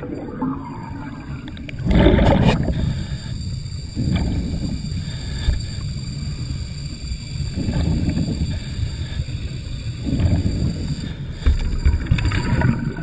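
Air bubbling and rushing underwater in repeated surges every two to three seconds, heard through an underwater camera housing, with the strongest surge about two seconds in.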